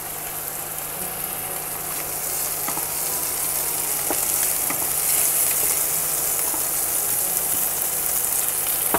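Shrimp and garlic sizzling in hot oil in a frying pan, stirred with a wooden spatula, with a few light taps. The sizzle grows louder over the first few seconds, then holds steady.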